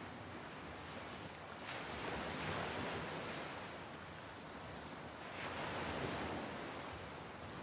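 Sea surf washing in, a steady wash of breaking waves that swells twice, a little under two seconds in and again about five and a half seconds in.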